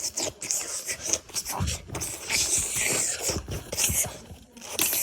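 Scraping and squishing of sticky homemade slime being worked by hand, with a few dull low knocks near the middle.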